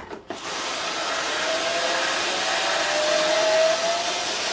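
Cordless electric screwdriver with a Torx T20 bit running steadily as it undoes a casing screw, starting about half a second in; its motor whine rises slowly in pitch.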